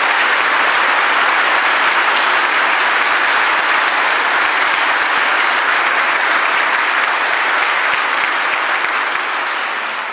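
A church congregation applauding, a dense, steady round of clapping that fades out just as it ends.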